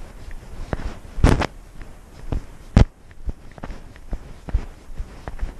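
Irregular knocks and scuffs picked up by a GoPro worn on a cat as it moves, with two louder thumps about a second and a half apart.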